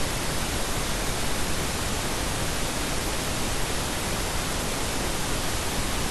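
Steady, even hiss of background noise, unchanging throughout, with no other sound on top.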